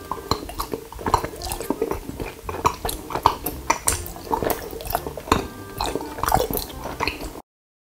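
Close-miked wet, sticky mouth sounds: rapid, irregular lip smacks and clicks as thick honey is squeezed from a plastic squeeze bottle into the mouth, sucked and chewed. It cuts off abruptly near the end.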